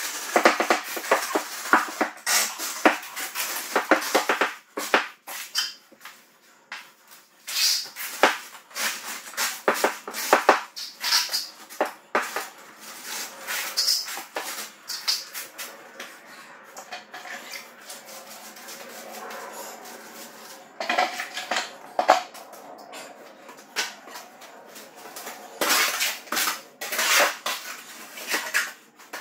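Steel trowel scraping and clinking on concrete and wet cement mortar, with a wooden screed board rasping across the floor, as mortar is spread and levelled to fill a low floor. The strokes come in irregular runs, busy for the first dozen seconds, sparse in the middle and busy again near the end.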